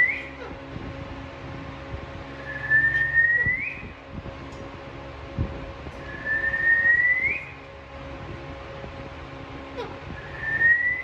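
Pet parrot whistling a single upward-sliding whistle, about a second long and ending in a quick rise, repeated about four times at regular intervals.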